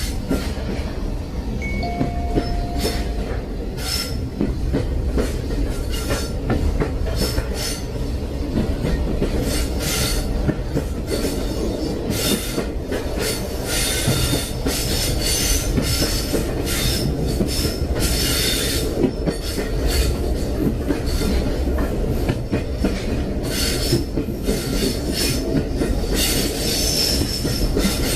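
Train running on the rails: a steady low rumble with frequent short bursts of high metallic screech and clatter from the wheels on the track.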